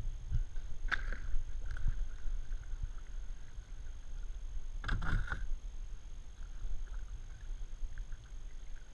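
Kayak paddle strokes in a shallow creek, with two clearer splashes, about a second in and about five seconds in, over a low steady rumble.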